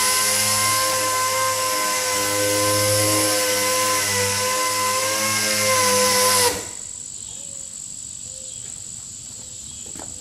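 Air-powered sander running at speed on wet-sanded car paint, a steady whine over an airy hiss, during the final wet-sanding pass before buffing. It shuts off abruptly about six and a half seconds in, leaving only a faint steady high tone.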